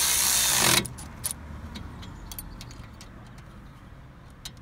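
A Milwaukee Fuel cordless ratchet runs as it drives a brake caliper bolt back in, then stops under a second in. After that come scattered light metallic clicks as the tool and socket are handled.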